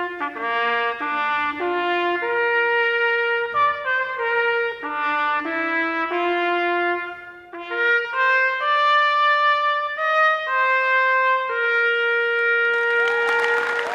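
Trumpets playing a melody of held, sustained notes, changing pitch every half second to a second or so. Near the end a rising rush of noise swells in.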